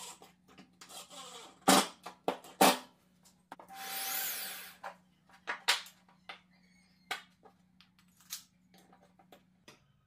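Cordless impact driver driving a screw into a plywood bracket in short runs, the longest about four seconds in. Between the runs come sharp knocks and clicks of wooden parts handled and set down on the plywood bench.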